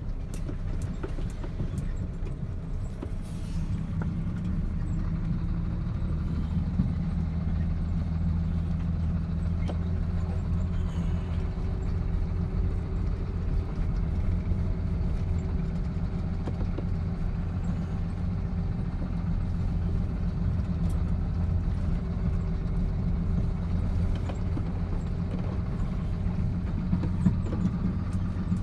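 Truck engine running steadily while driving, a continuous low drone heard from inside the cab.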